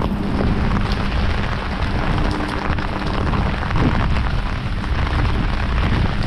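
Heavy rain falling steadily, with a low rumble of wind buffeting the microphone.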